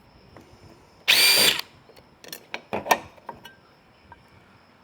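Power drill-driver running in one short burst of about half a second, backing out a screw from an RV compartment latch, followed by several light clicks and knocks of the screw and latch parts being handled.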